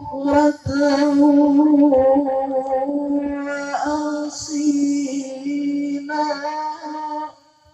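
A man reciting the Qur'an in the melodic tilawah style into a microphone, holding long sustained notes with ornamented turns. The recitation breaks off sharply shortly before the end.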